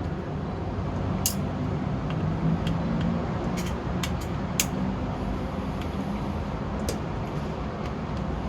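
A handful of short, sharp clicks, spread out, as a small screwdriver works the screws out of a plastic remote control's case, over a steady low hum.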